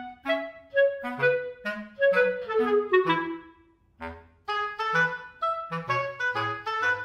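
Background music: a light tune of short, separate notes, with a falling run of notes a couple of seconds in and a brief pause about halfway through.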